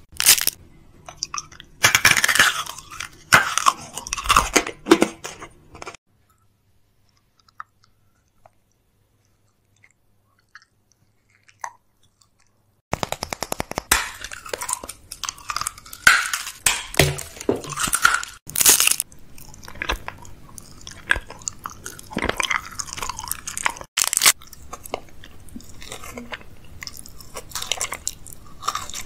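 ASMR eating sounds recorded close to the microphone: hard candy from a large sprinkle-covered lollipop being bitten and crunched, with chewing and wet mouth sounds. These begin after a stretch of near silence about six to thirteen seconds in, which follows a few seconds of soft close-miked mouth sounds.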